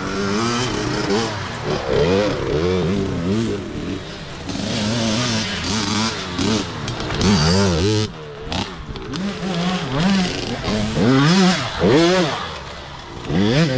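Youth dirt bike engines revving up and easing off as riders pass one after another, pitch rising and falling with each shift and pass. The engines are briefly quieter about eight seconds in, and the loudest pass comes near the end.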